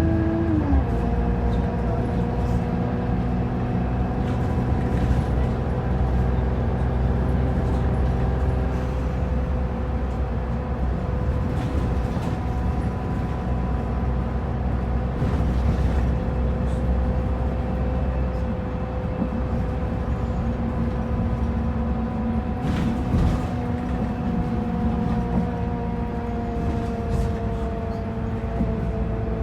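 Inside an Optare Versa single-deck bus on the move: steady engine and road rumble with an unusual steady whine on top. The whine drops sharply in pitch about half a second in, then holds almost level and sags slightly. There are a couple of brief rattles past the middle.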